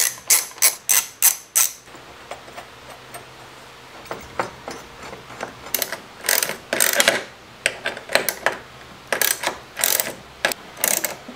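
Hand ratchet wrench clicking as it tightens a bolt on a steel light-mount bracket, in several bursts of rapid clicks with short pauses between.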